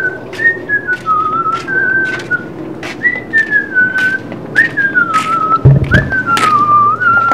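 A person whistling a tune in short phrases that each start high and fall, about six phrases in all. Sharp taps come about twice a second underneath, and there is a low thud shortly before the end.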